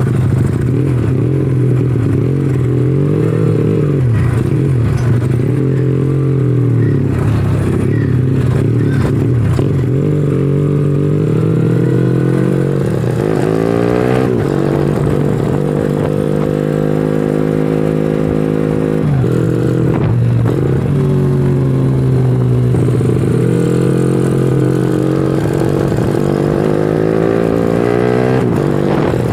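Honda Astrea Legenda 2's single-cylinder four-stroke engine running hard on a test ride, its revs climbing, holding high for a few seconds, then dropping and climbing again as it goes through the gears. The carburettor has a 120 main jet and a 42 pilot jet, which the owner still finds rich at low revs, the pilot jet being too big.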